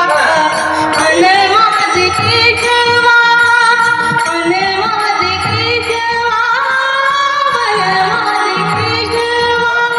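A woman singing a Marathi devotional abhang in long, gliding held notes over instrumental accompaniment.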